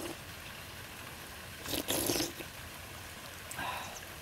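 A person slurping a runny soft-boiled egg out of its shell, one short slurp about two seconds in and a fainter one near the end, over a faint steady hiss.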